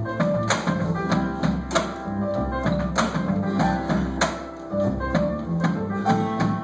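Live band music: strummed acoustic guitar and upright bass over a steady percussive beat that lands about every 0.6 seconds.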